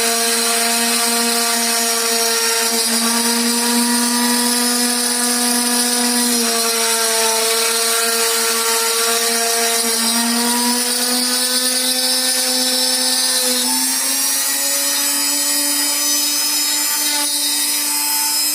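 Homemade wooden-frame CNC machine running a test job: a steady motor whine with many overtones that shifts in pitch a few times, ending a little higher.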